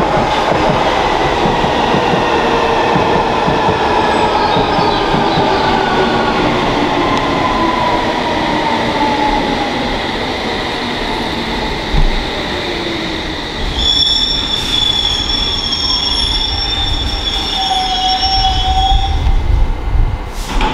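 London Underground S7 stock train braking into the platform, its traction motors whining in several tones that fall steadily in pitch until it stops about 12 seconds in. While it stands, steady high-pitched tones ring for several seconds, and a low rumble grows near the end.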